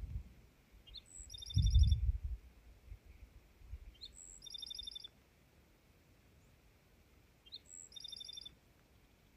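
A small songbird repeating the same short song three times, about every three seconds: a couple of quick high notes, then a fast, even trill. In the first two seconds there are low rumbling thuds, louder than the bird.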